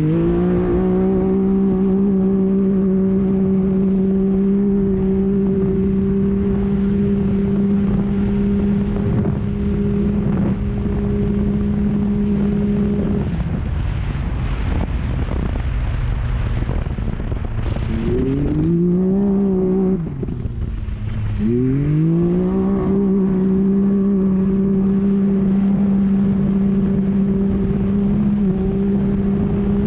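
Off-road race vehicle's engine held at steady high revs under throttle, backing off about 13 s in. It revs up again around 18 s, dips briefly near 20 s, then climbs back and holds until it lets off near the end. Constant wind and road noise with scattered knocks run underneath.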